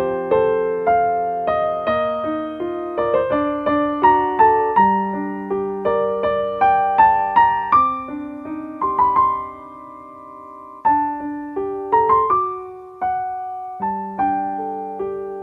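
Slow, gentle piano or electric piano music: single notes and chords struck one after another, each ringing out and fading, with a quieter held chord for a couple of seconds in the middle before the playing picks up again.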